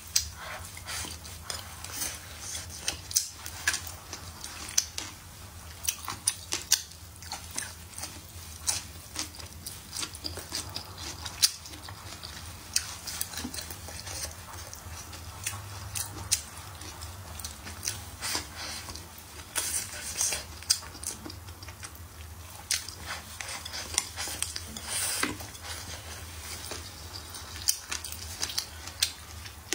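Chewing and mouth sounds of someone eating, with many short sharp clicks, and chopsticks now and then clicking against the plate, over a low steady hum.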